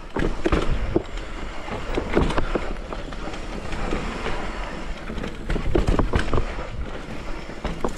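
Downhill mountain bike running over rough dirt trail: wind rushing on the microphone, tyre noise, and frequent short knocks and rattles from the bike over bumps.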